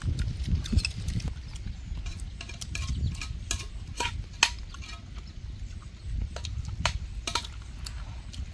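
Chopsticks clicking and clinking against rice bowls as several people eat, in scattered light taps over a low rumble.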